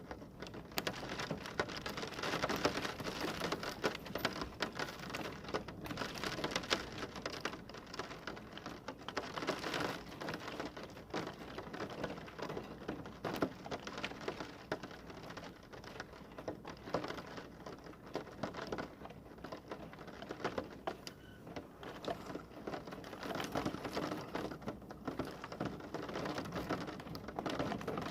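Heavy rain falling, a dense, steady patter of drops striking a hard surface that swells up about half a second in.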